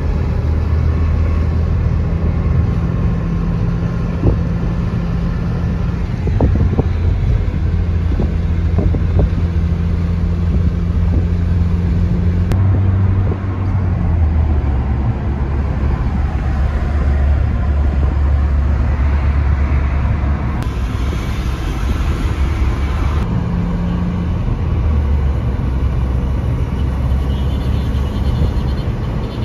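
Taxi on the move, heard from inside the cabin: a steady low engine hum over road and tyre noise, the engine note stepping up and down a few times as the car changes speed.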